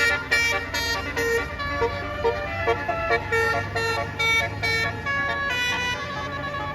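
Bus telolet horn (Basuri type) playing a quick melody of short notes that change pitch, over a low steady rumble.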